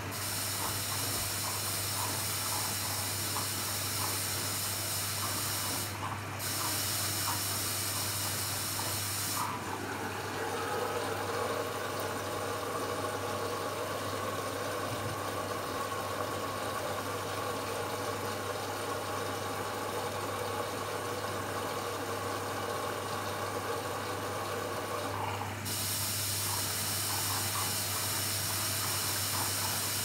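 Beko WM5122S washing machine filling with water for its first rinse: water hisses in through the inlet. For about fifteen seconds in the middle the hiss gives way to a steadier, more pitched rush, then the hiss returns. A low steady hum runs underneath.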